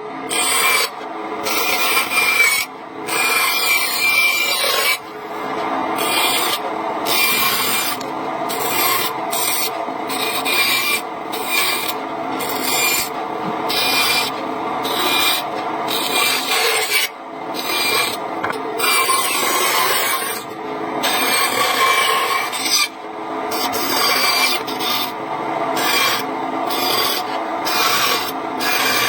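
Wood being cut: a continuous coarse scraping, broken every second or so by brief gaps.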